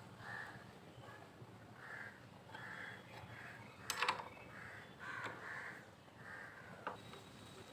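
Crows cawing again and again in the background, with a few sharp clicks among them, the loudest about four seconds in.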